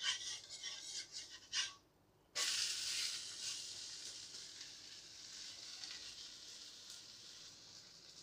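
Spatula scraping under a wheat rava dosa on an iron tawa in a quick series of strokes. After a brief break, the flipped dosa sizzles on the hot tawa, starting suddenly and slowly fading.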